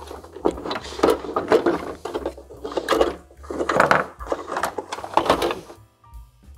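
Quick irregular clicks, taps and rustles of a steam cleaner's plastic casing and its wiring being handled as the indicator lamp is pushed back into its holder, stopping about a second before the end.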